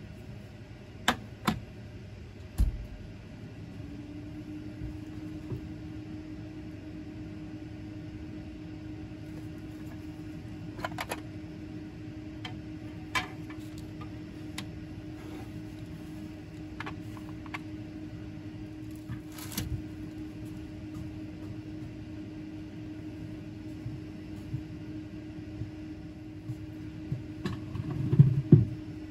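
A machine's steady hum sets in a few seconds in and carries on under scattered light clicks and knocks. The clicks and knocks come from clear plastic rearing dishes and a container being handled and set down, with a louder cluster of knocks near the end.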